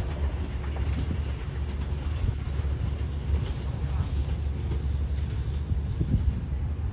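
A train running on the track: a steady low rumble with a few sharp clicks scattered through it.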